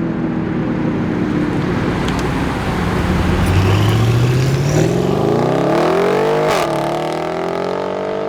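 A car engine running at a steady note, then accelerating: its pitch climbs smoothly for about three seconds, dips briefly, then holds at a higher pitch near the end.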